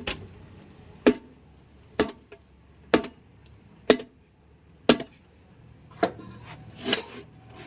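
Sharp metal-on-metal blows, about one a second and eight in all, from a hammer striking a tyre lever or steel wheel rim to work a hard tyre off the rim.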